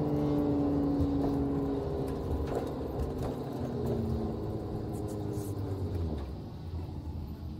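Nissan Skyline R33 GT-R's twin-turbo RB26DETT straight-six heard from inside the cabin, its note falling steadily over the first couple of seconds, then running lower and quieter at low revs.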